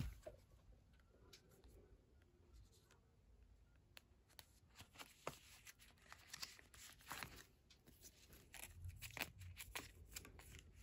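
Faint plastic rustling and light clicks of sleeved photocards being slid into the clear pocket pages of a ring binder, mostly quiet at first and busier from about four seconds in.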